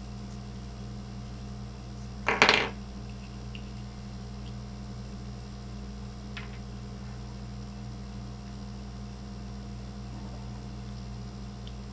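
A brief clatter of small hard parts and a tool knocking on the workbench about two seconds in, followed by a faint single click a few seconds later, over a steady low electrical hum.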